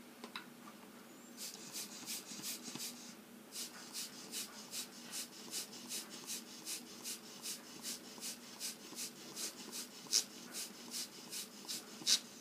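Tim Holtz Distress Marker Spritzer puffing air across a marker tip to spray ink, in a quick train of short hissing spurts of about four a second with a brief pause about three seconds in.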